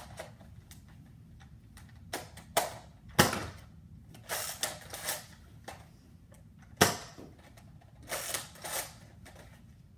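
Nerf Zombie Strike SlingFire lever-action dart blaster being worked and fired: plastic clicks and rasps of the cocking action, with two sharp snaps of shots, about three seconds in and again near seven seconds.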